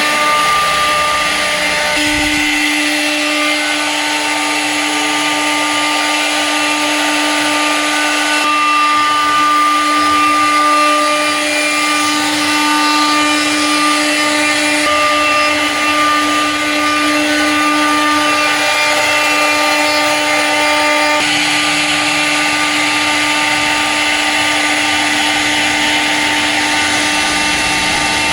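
CNC wood-turning lathe running: a loud, steady motor whine over a hiss that shifts in strength a few times.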